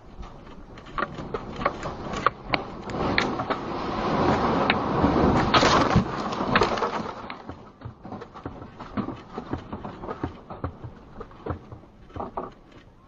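A room shaking in an earthquake: objects rattling and knocking, with a rumble that swells to a peak a few seconds in and then fades, leaving scattered knocks.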